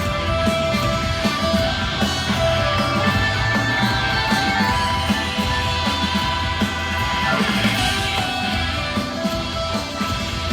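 Live rock band playing: electric guitars holding sustained lead notes over a steady drum beat.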